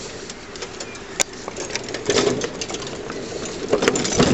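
A pony's hooves clopping on a tarmac path while the pony cart and its harness rattle along behind it, a run of short clicks and knocks.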